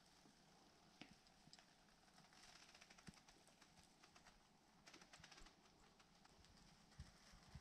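Near silence with faint scattered knocks and clicks, and two short stretches of scratchy rustling.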